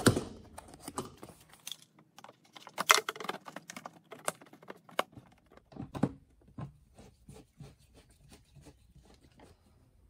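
Irregular small clicks and knocks of a hard plastic fuel filler door housing being handled and fitted into place, with a sharper knock at the start.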